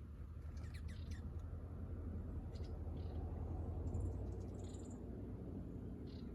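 Scattered short, high bird chirps over a low steady rumble that swells to a peak about four seconds in and then eases.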